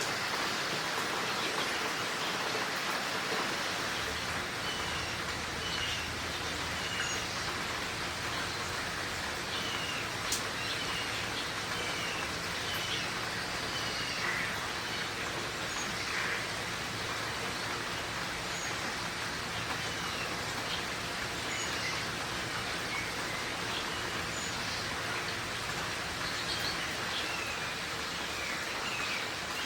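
Steady rain shower falling, with small birds at a feeder giving short high chirps now and then, and a single sharp click about ten seconds in.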